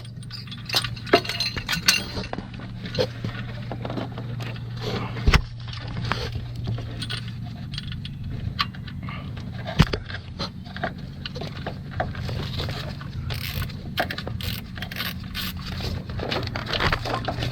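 Metal hand tools and bolts clinking and tapping against the engine while parts are being fitted, with scattered small clicks and two sharper knocks, one about five seconds in and one about ten seconds in. A steady low hum runs underneath.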